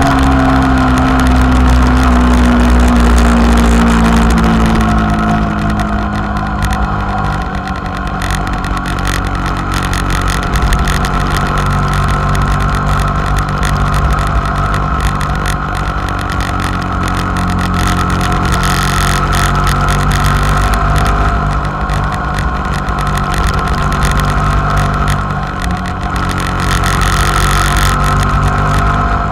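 Motorcycle engine running at highway cruising speed, with heavy wind rush on the microphone. The engine note drops over the first few seconds, then holds steady.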